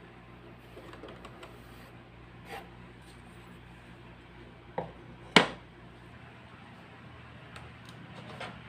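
Small clicks and light knocks of miniature kitchen things being handled, with two sharp knocks just before and about five and a half seconds in, the second the loudest sound. A low steady hum runs underneath.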